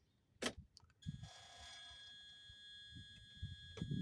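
A single click of the ignition key switch, then a steady high electronic warning tone from the backhoe loader's dashboard. The engine does not crank, the sign of this machine's no-start fault.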